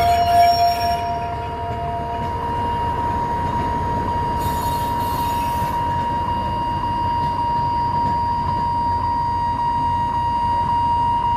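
Alishan Forest Railway train running: a low rumble with a steady high-pitched tone over it.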